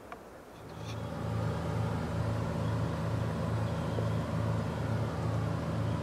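A motor engine running steadily, starting about half a second in, a low hum with a regular throb about two or three times a second.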